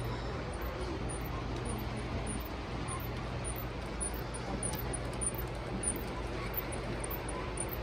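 Large-scale model steam locomotive running on a loop of track: a steady low hum and rumble, with faint voices in the background.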